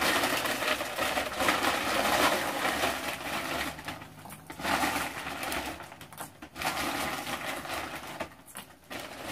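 A plastic bag rustling and crinkling as it is handled, in long noisy stretches broken by short pauses about four and six seconds in.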